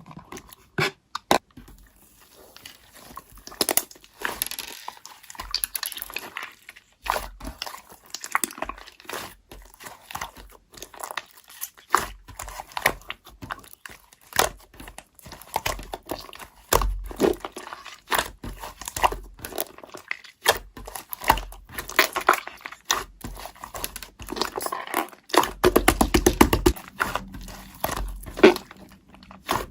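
Irregular crinkling and crunching with many sharp clicks, like crinkly material being handled, torn or chewed, with a denser, louder stretch near the end.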